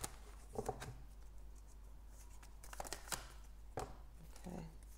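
Tarot deck being shuffled by hand: soft, scattered card flicks and slaps, with a quick cluster of sharper snaps about three seconds in.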